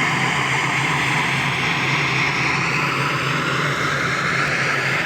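Quarry machinery running steadily: a constant low hum under a broad, even hiss.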